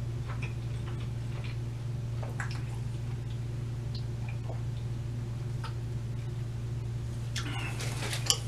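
A person drinking from a 2-liter plastic bottle: faint swallowing and small liquid clicks over a steady low hum, then a louder rush of noise with a sharp knock near the end.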